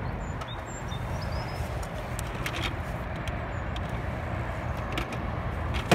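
Steady low outdoor rumble, with a few faint clicks scattered through it and a sharp knock at the very end.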